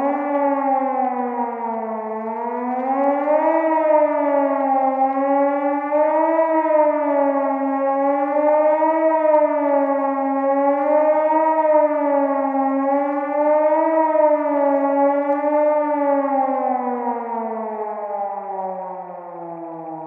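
Civil defense warning siren winding up to pitch, then wailing with a slow rise and fall about every two and a half seconds, and winding down near the end.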